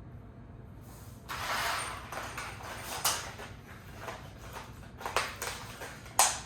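Hands handling office-chair parts and their packaging: rustling starts a little over a second in, broken by several sharp clicks and knocks, the loudest just before the end.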